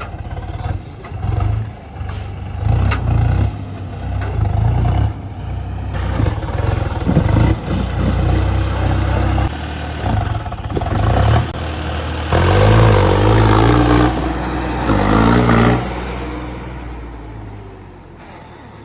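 Tractor diesel engine running and revving, its loudness rising and falling in repeated surges before easing off near the end.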